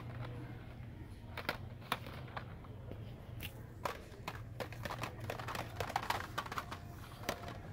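Hot Wheels blister-pack cards clicking and clacking against each other as they are flipped through one by one on a metal peg hook: irregular quick taps, over a steady low hum.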